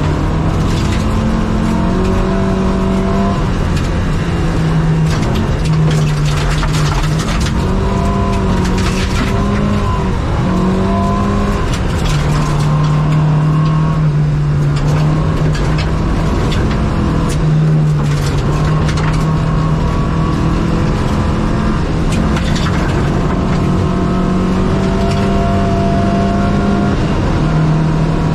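Opel Kadett rally car's engine at high revs, heard from inside the cabin, its pitch climbing and then dropping again several times with the gear changes as the car accelerates. Tyres running on gravel, with the clatter of stones striking the underbody.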